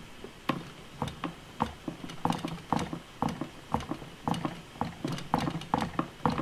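Fingers pressing and tapping Play-Doh into a hollow plastic mould, making a quick, irregular series of soft knocks on the plastic, about two to three a second.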